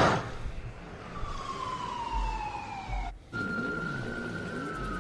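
Siren sound effect opening a song's intro: two long wails falling in pitch, the second starting about three seconds in, over faint low bass thumps.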